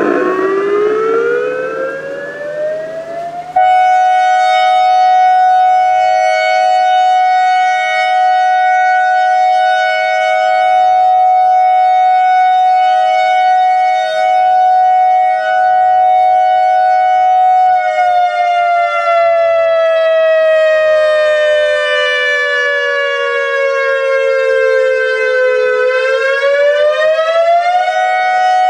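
ACA AR-1600 Alertronic electronic siren sounding its fire signal: a loud tone that rises over the first few seconds, holds one steady pitch, slowly falls about two-thirds of the way through, then quickly rises back to the steady pitch near the end.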